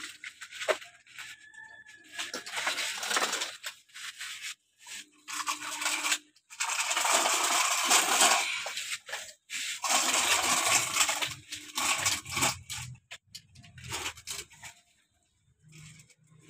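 Loose soil scraped and poured into the bed of a plastic toy dump truck, with the plastic toy clattering as it is handled. The sound comes in irregular bursts of grainy scraping, the longest in the second half.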